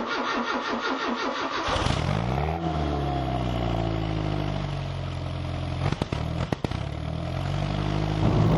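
A car engine cranked by its starter, catching about two seconds in with a quick rev, then settling to a steady idle. Two sharp clicks come a little past the middle.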